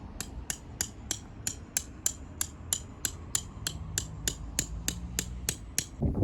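A steady series of sharp, light clicks or taps, about three a second.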